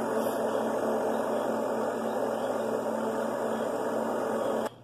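Steady hum with a hiss over it, holding a few fixed low tones, cutting off suddenly near the end.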